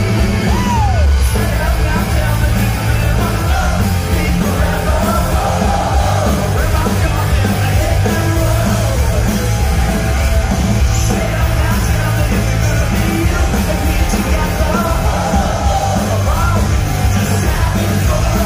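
Live punk rock band playing loud, with electric guitars, drums, heavy bass and vocals, recorded from within the audience.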